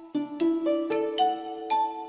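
Background music: a light melody of struck, ringing notes, several a second.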